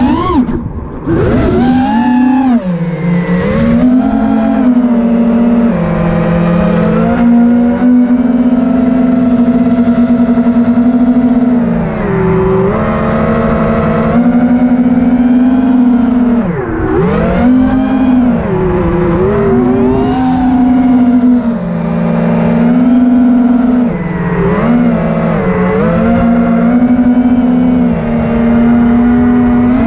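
FPV racing drone's brushless motors and propellers whining, heard from on board. The pitch holds steady for stretches, then dips and swoops back up again and again as the throttle is cut and reapplied, with sharp drops about twelve and seventeen seconds in.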